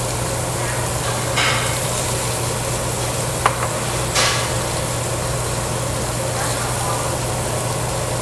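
Meat sizzling on a tabletop barbecue grill over the steady hum of an overhead exhaust hood. Two short bursts of noise, about a second and a half and four seconds in, and a single sharp click between them.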